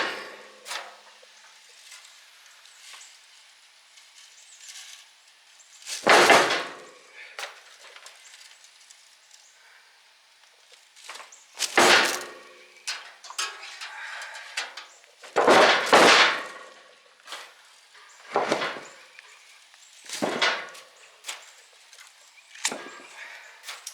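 Irregular metal clanks and knocks, about half a dozen loud ones spread over the stretch, as parts of an old electric motor are pried apart and pulled out for scrap.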